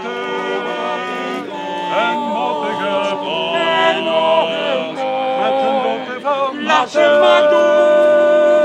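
Male vocal quartet singing unaccompanied in harmony, several voices holding each chord together. About seven seconds in they hold a long loud chord.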